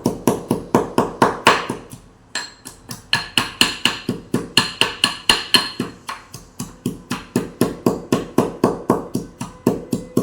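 Mortar and pestle pounding ginger, tulsi leaves and whole spices fine: steady, rapid strokes, about four or five a second, each with a short ringing clink, with a brief pause about two seconds in.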